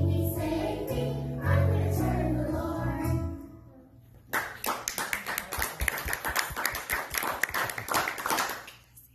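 Children's choir singing over a recorded backing track, which ends about three seconds in. About a second later there is applause lasting about four seconds.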